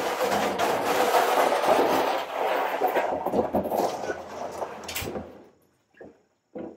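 A large plastic water-softener brine tank being carried and handled: a long stretch of rumbling, scraping noise with many small knocks. It fades out, and the tank is set down on the asphalt with two short knocks near the end.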